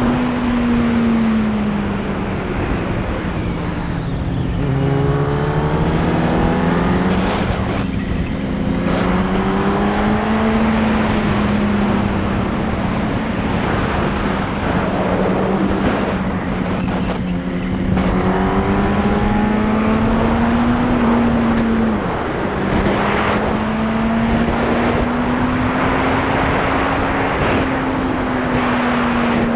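Yamaha R1 inline-four engine running under way, its pitch rising and falling as the throttle is rolled on and off through the bends. It dips about four seconds in and again briefly about twenty-two seconds in. Steady wind noise runs under it.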